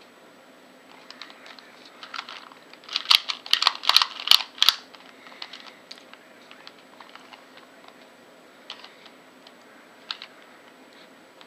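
LanLan 2x2 puzzle cube being turned by hand: a quick run of plastic clicks and clacks about two to five seconds in, then scattered single clicks.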